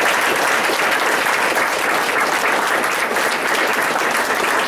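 A roomful of people applauding steadily, with dense overlapping clapping.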